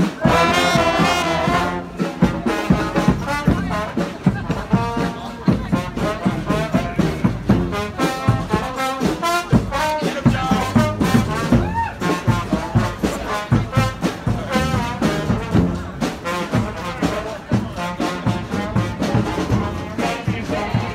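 Street brass band playing a tune on the move, horns over a steady drum beat.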